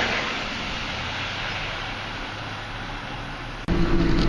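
Steady vehicle road noise that eases slightly. About three and a half seconds in it gives way abruptly to a louder, steady low engine hum.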